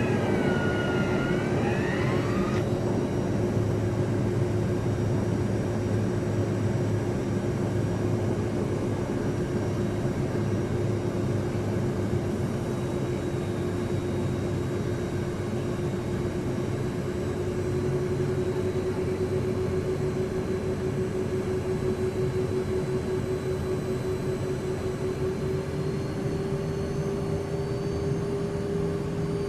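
Learjet cabin interior in flight: steady jet engine drone and rushing air with a constant whine. The engine tone rises slightly in pitch near the end.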